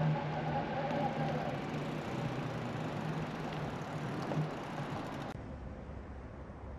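A motor vehicle's engine running with a steady hum, fading away, with the sound dropping off sharply about five seconds in.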